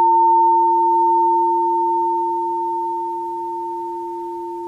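Ruby Aqua Aura Gold crystal alchemy singing bowl, note F tuned to 432 Hz, left ringing: a pure, steady tone with one higher overtone, slowly fading.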